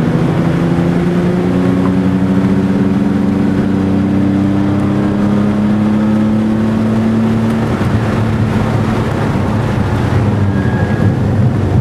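Porsche 996 Turbo's flat-six engine heard from inside the cabin, pulling hard on track with its note climbing slowly for about eight seconds. The note then drops and settles lower near the end as the car comes off full throttle.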